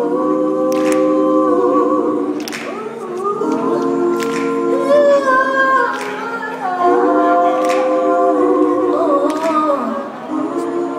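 Several voices singing live, holding sustained chords in close harmony that shift every second or two, with a sharp hit marking the beat about every second and a half.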